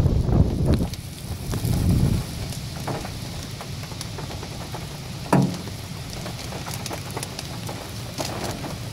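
Storm rain falling, a steady hiss, with a low rumble in the first two seconds and one short, sharp, loud sound about five seconds in.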